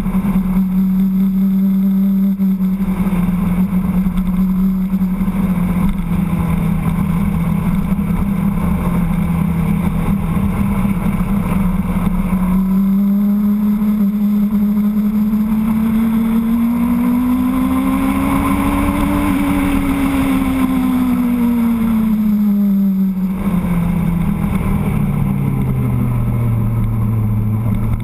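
Motorcycle engine running under way, its note steady at first and dipping slightly about three seconds in. Past the middle the revs climb smoothly to a peak, then fall back and settle at a lower note near the end.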